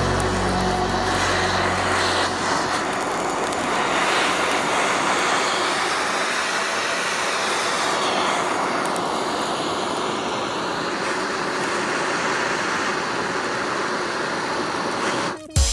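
Handheld butane blow torch running, its flame hissing steadily like a small jet, with a brief drop-out shortly before the end.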